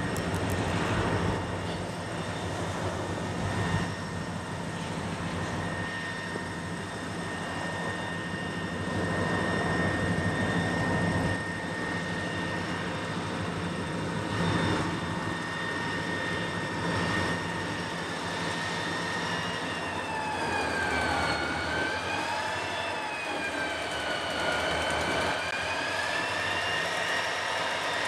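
EMD diesel-electric locomotives (SD40-2s and a GP40) running as they move slowly, a low engine rumble under a high whine that dips and rises in pitch in the last third.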